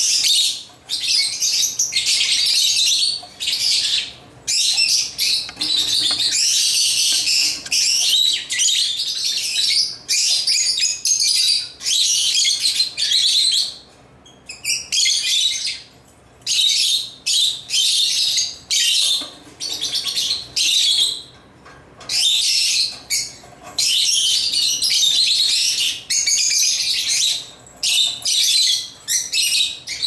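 Lovebirds chirping: rapid, shrill chattering in bursts of a second or two, with brief pauses between.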